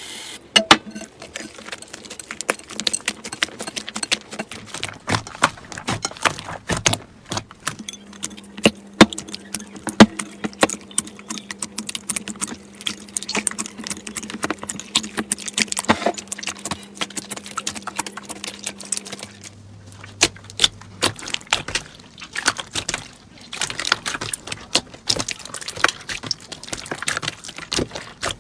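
Slime being squeezed and handled, giving a dense run of crackling, popping clicks at irregular intervals.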